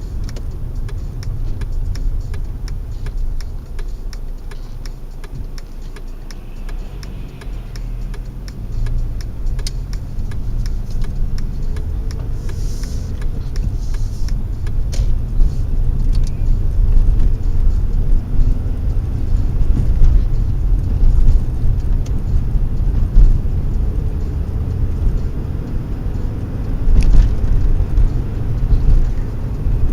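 A car driving: a steady low rumble of engine and road noise with many small clicks and rattles, growing louder after about ten seconds, and a sharper knock near the end.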